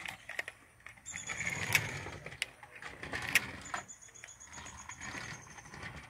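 Toy remote-control car driving across wooden deck boards: the small electric motor whines as it runs in spurts, with the wheels rumbling over the boards and a few sharp clicks.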